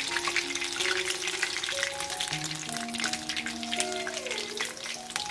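Hot oil sizzling and crackling in a kadai as urad dal vada batter deep-fries, with many fine pops. Background music with held notes plays over it.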